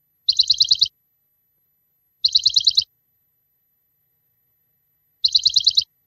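A high, rapid bird-chirp trill of about seven quick notes in just over half a second, sounding three times with dead silence between. The repeats are identical, as from a looped chirp sound effect rather than a live recording.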